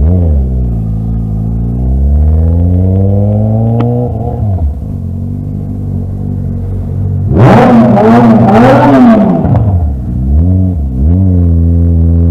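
Motorcycle engine accelerating through the gears, its pitch rising steadily and dropping at each upshift, about four seconds in and again near the end. A louder burst of engine revving, with the pitch wavering, comes about halfway through.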